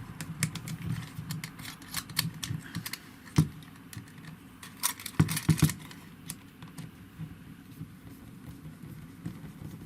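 Small metal clicks, taps and light rattling as a nozzle is fitted onto a hot air gun and its little nut tightened onto the bolt, with a louder knock about three and a half seconds in and a few more between five and six seconds.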